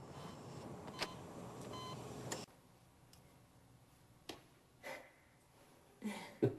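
A short electronic beep over a soft steady background, which cuts off abruptly about two and a half seconds in. The room is then quiet apart from a couple of soft clicks.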